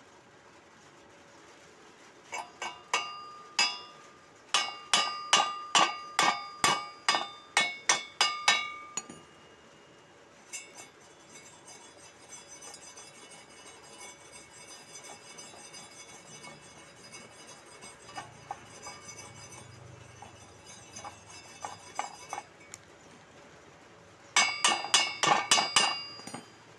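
Chipping hammer knocking slag off a stick-welded bead on steel plate: a run of sharp, ringing metal clinks, several a second. Then comes a quieter, scratchy stretch of wire-brushing over the cleaned bead, and a second quick burst of clinks near the end.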